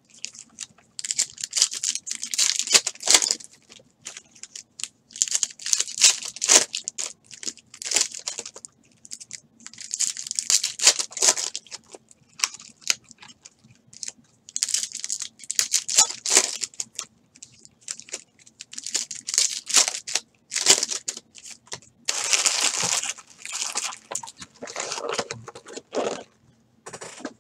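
Foil trading-card pack wrappers being torn open and crinkled by hand, in short crackling bursts every second or two, with a longer, louder stretch near the end.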